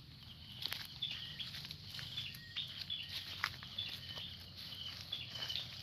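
Footsteps in sandals on a muddy path and brushing through wet grass and brush, a scatter of sharp clicks and rustles. Behind them insects chirp in short, high pulses repeating about twice a second.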